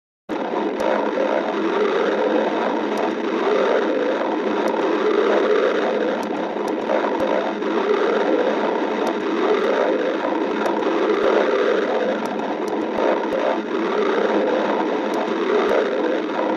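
Stomach growling and gurgling: a continuous rumbling that swells and eases every second or two, with scattered small clicks. It starts abruptly and cuts off abruptly.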